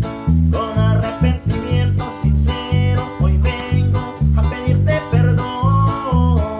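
Music with guitar: a band playing over a steady bass beat about twice a second, with a lead melody line gliding on top.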